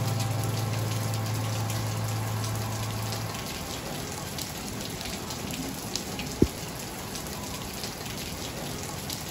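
Steady rain falling on a tiled patio, a lily pond and tropical foliage, with a scatter of individual drops. A low steady hum stops about three seconds in, and a single sharp knock sounds a little past halfway.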